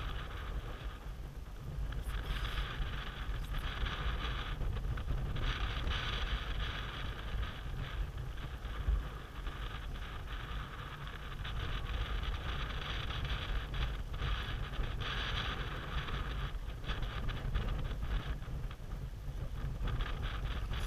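Water rushing and splashing along the hull of a sailboat under sail, a hiss that swells and fades every few seconds with the waves, over a steady low rumble of wind on the microphone.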